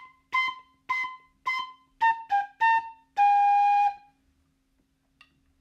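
Soprano recorder playing a short melody: four repeated B's, then A, G, A, ending on a held G.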